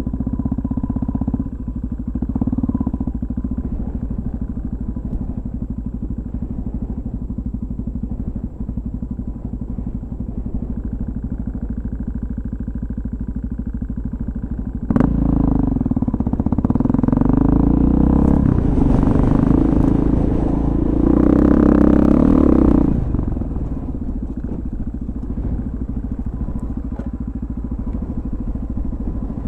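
Dirt motorcycle engine running steadily as the bike rides a rough trail. About halfway through a sudden knock comes, and the engine is louder and fuller for about eight seconds before settling back to a steadier, quieter note.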